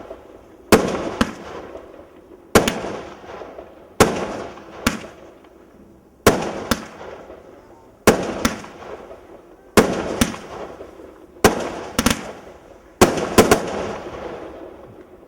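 Fireworks going off in a regular series: about eight sharp bangs, roughly one every 1.7 seconds. Most come as a close double bang, and each trails off in crackle.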